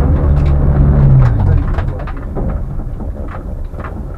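Rally car engine running, then cutting out about a second and a half in, its pitch lifting briefly just before it stops; after that only a low rumble with faint clicks and knocks. The crew blame the cut-out on a faulty battery master switch.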